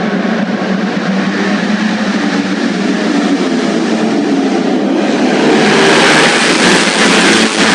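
Racing motorcycle engines running hard at high revs as bikes race past, swelling louder about five seconds in.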